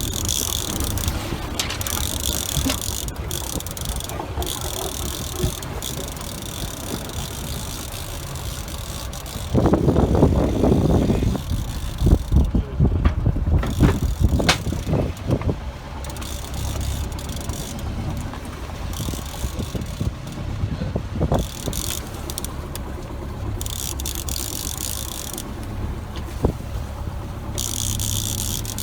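Steady wind and water noise aboard a sailboat under way, with a low rumble and gusts of hiss that come and go. About ten seconds in, a louder stretch of rapid clicking and rattling lasts several seconds.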